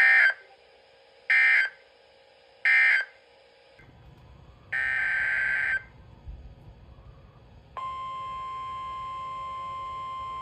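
Three short, screechy EAS/SAME digital data bursts about 1.3 s apart, the end-of-message code that closes a NOAA Weather Radio broadcast. About a second later comes one longer data burst. Near the end a steady, piercing tone of about 1 kHz begins, the NOAA Weather Radio 1050 Hz alert tone that comes before a new warning or watch message.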